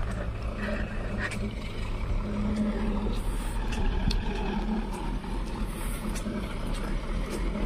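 Old truck's diesel engine running under load as it struggles to climb a slope, a steady low drone; its clutch plate is thought to be worn out.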